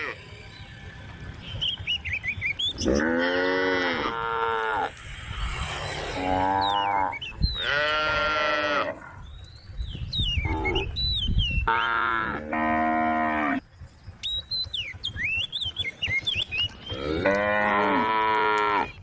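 Cattle mooing, about eight calls one after another, some short and some drawn out, with a pause of a few seconds before a last moo near the end.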